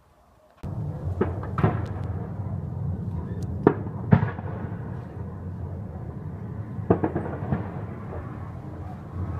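Gunfire during a battle: about six sharp reports in rough pairs, each with a short echo, over a steady low rumble.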